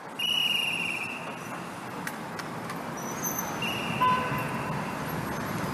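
City street traffic noise, steady, with two short high-pitched beeps: one near the start and one about four seconds in.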